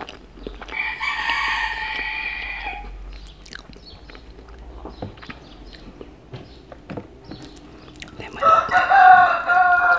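A rooster crowing twice, once about a second in and again near the end. Each crow is a held call of about two seconds, and the second falls away at its end. Faint clicks of eating with a spoon come in between.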